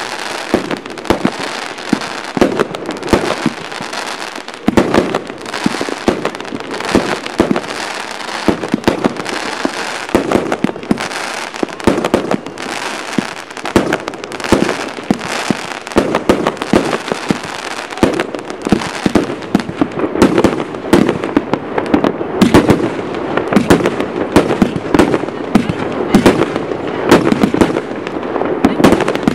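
Aerial fireworks bursting overhead: a dense, unbroken run of sharp bangs and crackles in quick succession.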